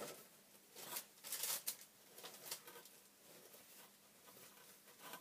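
Plastic packaging wrap crinkling and rustling as it is handled and folded, in a few short bursts during the first half, then only faint crackles.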